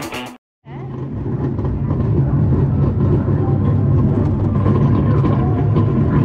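Children's dark-ride car rolling along its steel rail track: a steady low rumble that starts after a moment of silence about half a second in.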